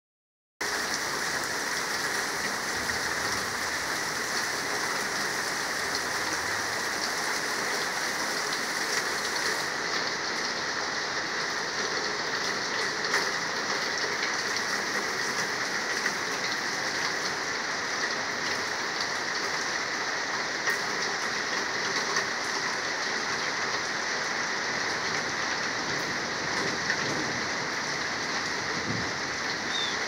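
Steady, heavy rain falling on tree foliage, grass and a gravel driveway, with a few louder single drops tapping close by.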